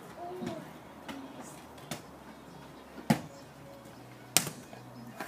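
Two sharp thuds of a football being struck, about a second and a half apart, the second the louder.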